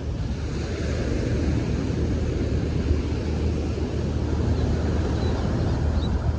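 Ocean surf washing on the shore with wind buffeting the microphone, a steady low rumble under it. A few faint, high-pitched chirps come near the end.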